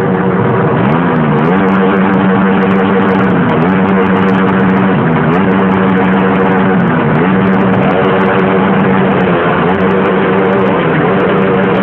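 Liquid-cooled motorcycle engine held at high revs, loud and steady, dipping briefly and climbing straight back about every two seconds.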